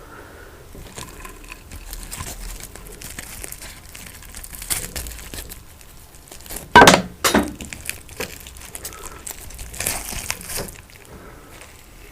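Close-miked eating and food-handling sounds of a rice-stuffed chicken meal: crinkling, crackling and small clicks, with a sharp loud crunch about seven seconds in and a second one just after.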